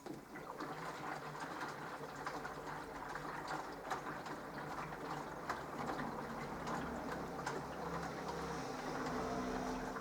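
Minicolo mini washing machine starting up again after a pause in the wash: the drum turns with water and laundry sloshing, a low motor hum strengthening in the second half.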